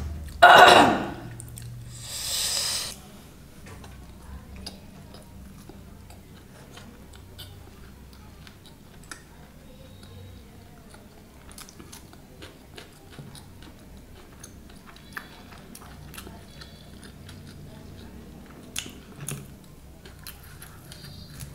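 Close-up chewing of a big mouthful of soft lachha paratha and paneer curry: a couple of loud wet mouth sounds in the first three seconds, then quieter chewing with many small wet clicks.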